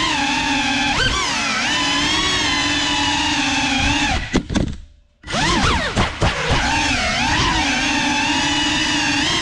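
GEPRC Cinelog 35 cinewhoop's motors and ducted propellers whining in flight, the pitch shifting up and down with throttle. About four seconds in the throttle is cut and the sound drops almost to nothing for about a second, then spools back up to a steady whine.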